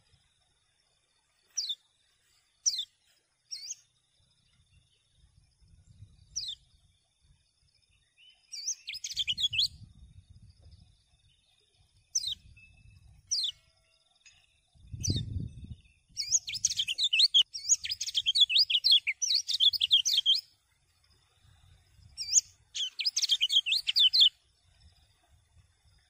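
Caged kecial kuning (a yellow white-eye) calling and singing. It gives single high, downward-sliding chirps a second or more apart, then bursts of fast twittering song, the longest about four seconds past the middle and another near the end. There is a low thump about halfway through.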